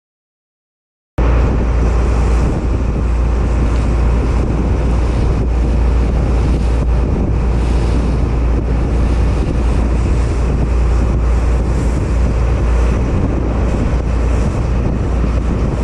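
Heavy wind buffeting the microphone on a fishing boat running at speed, over the rush of the bow wake and the boat's engine. It starts abruptly about a second in and then holds steady and loud.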